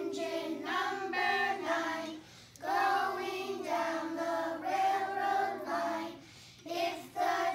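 A class of young children singing together in unison, in phrases broken by two short pauses, about two seconds in and again near the end.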